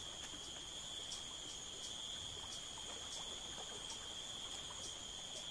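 Insects trilling in a steady, high, continuous chorus, with faint irregular ticks over it.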